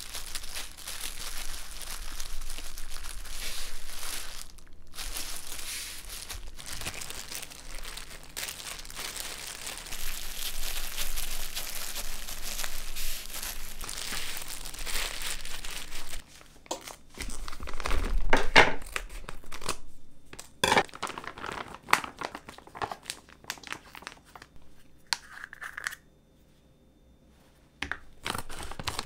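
Clear disposable plastic gloves crinkling and rustling as hands roll gimbap, followed by a cluster of sharp knocks and scrapes about two-thirds through and then handling of a plastic bag.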